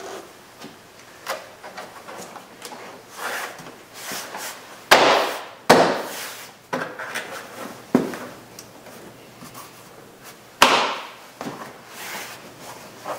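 Plastic retaining clips of a Toyota Corolla's interior door trim panel snapping loose as the panel is pried and pulled off the door, with four loud sharp snaps among smaller clicks and rubbing of the plastic panel.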